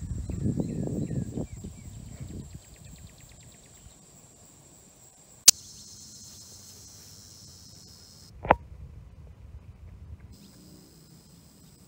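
Dogs scuffling and running through grass, with rustling over a steady high drone of crickets and other insects. About halfway a sharp click breaks in. After it the insects carry on more quietly, with one short thump near the end.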